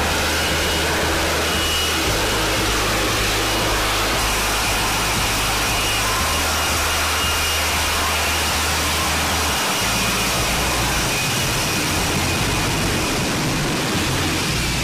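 F-35B's jet engine and lift fan running at hover power for a vertical landing: a loud, steady roar with a faint high whine over it.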